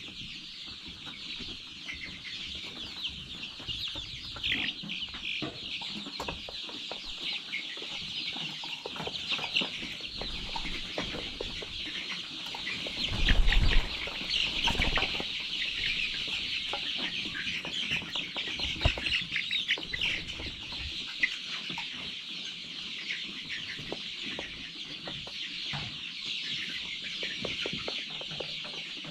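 A large flock of chickens in a chicken house calling continuously, many overlapping clucks and cheeps blending into a steady chatter. A dull thump stands out about halfway through.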